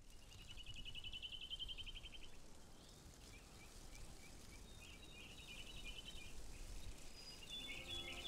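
Faint birdsong: a rapid trill heard twice, with short chirps between, over a low rumble of outdoor ambience.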